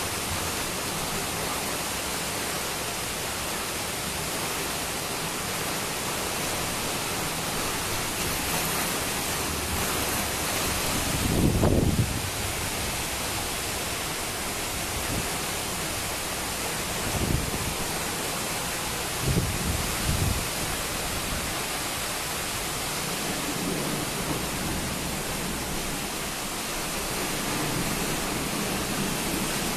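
Heavy rain pouring steadily in a thunderstorm, a constant hiss, with low rumbles of thunder: a long, loud one about twelve seconds in and shorter ones a few seconds later.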